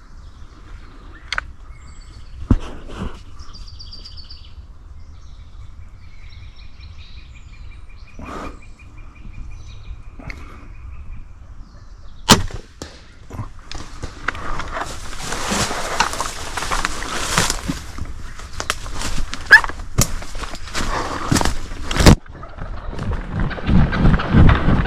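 Quiet with faint bird calls, then a sharp snap about halfway through, typical of a bow shot. Loud rustling with sharp knocks follows for several seconds, and rhythmic low thuds come near the end.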